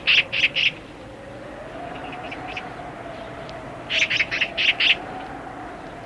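A bird calling in quick runs of sharp, high notes, a burst near the start and another about four seconds in, over the steady sound of strong wind with a faint moaning tone that slowly rises and falls.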